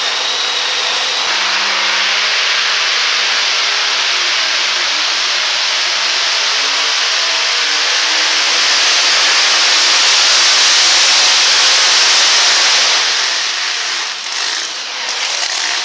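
Super modified two-wheel-drive pulling truck's engine at full throttle, dragging the sled down the track. The engine sound is loud and steady, swells from about eight to twelve seconds in, then eases near the end as the pull winds down.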